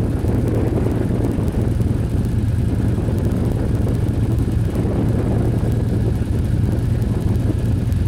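UTV engine running steadily: a low, even drone with rumbling noise beneath it and no change in pitch.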